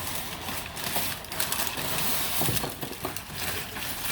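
Paper packing material crinkling and rustling as hands dig through a shipping box, with a dense run of small crackles that is busiest midway.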